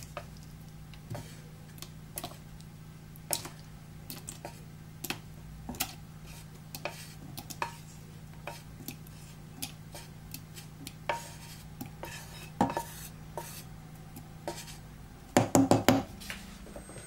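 Fried potato slices being tipped out of a nonstick frying pan into a plastic beaker of beaten egg: irregular light clicks and taps of utensil and pan, with a cluster of louder knocks near the end.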